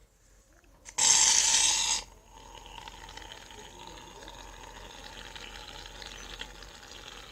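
Aerosol can of shaving foam being sprayed out: a loud one-second hiss that starts and stops sharply, then a quieter steady hiss for about five seconds.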